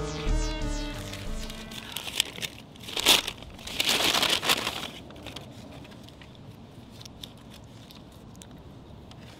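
Crinkling and crackling of a bag being handled, loudest from about three to five seconds in, then faint scattered clicks. Synthesizer music fades out in the first second or so.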